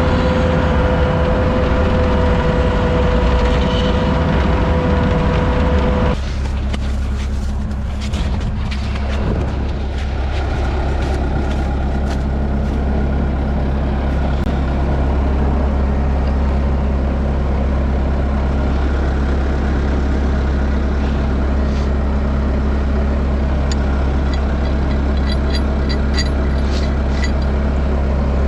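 Truck engine running steadily, with a high steady whine over it that cuts off suddenly about six seconds in, and light ticks and clicks near the middle and end.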